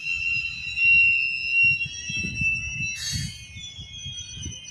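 Loaded ballast hopper cars of a slow freight train rolling past with a steady high-pitched metal-on-metal squeal from their steel wheels. Several shrill tones sound together and shift in pitch about three seconds in. Under them is a low, uneven rumble and clatter of the trucks on the rails, with a brief sharp noise near three seconds.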